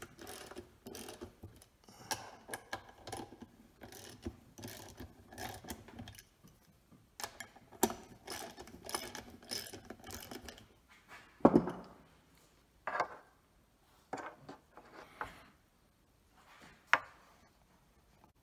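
Ratchet wrench clicking in quick repeated strokes while the brake-plate cap screws are loosened, followed in the second half by five or six separate, louder metal clunks about a second apart.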